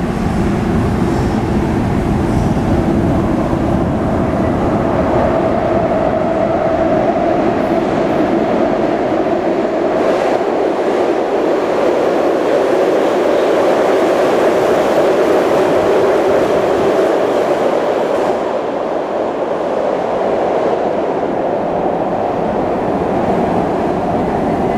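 SEPTA Market-Frankford Line subway train of Adtranz M-4 cars running through an underground station without stopping: a loud, steady rumble of steel wheels on rail, loudest around the middle as the cars pass, easing off over the last several seconds.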